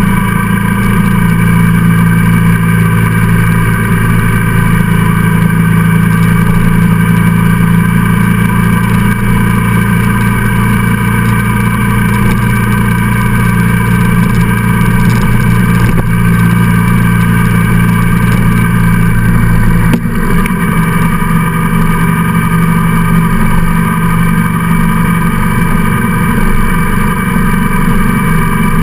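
Engine of the vehicle carrying the camera, running steadily at cruising speed on the open road, heard from on board. About twenty seconds in, the deep low hum drops away and the engine note changes.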